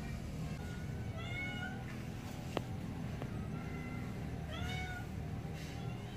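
Young kittens mewing: two short, high-pitched mews, one about a second in and another just before the five-second mark, with a single sharp click between them.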